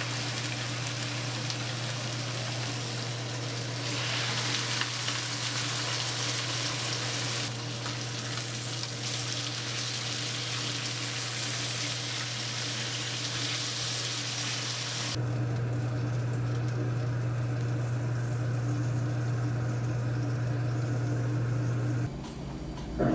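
Food sizzling in a hot frying pan over a steady low hum. About fifteen seconds in the sizzle suddenly becomes much fainter while the hum grows louder.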